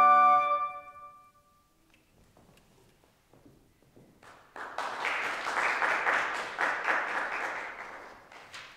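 Final chord of three flutes and piano, held and then cut off about half a second in, ringing briefly in the hall. After a short quiet pause, audience applause starts about four seconds in and tapers off near the end.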